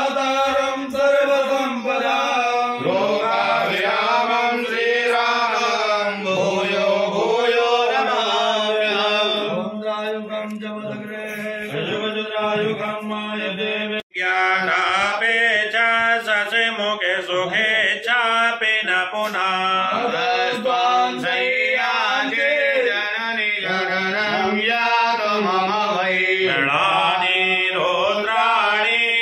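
Male Hindu priests chanting Sanskrit mantras in steady recitation. The sound breaks off for an instant about halfway through, then resumes.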